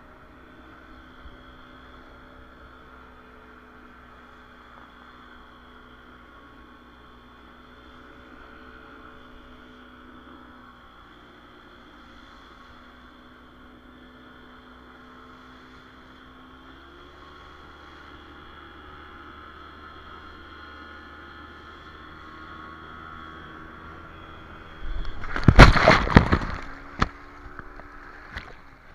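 Towing speedboat's engine running steadily under a wash of water, its note rising a little past halfway. Near the end a loud burst of splashing as the banana-boat riders go into the sea, then water sloshing close by.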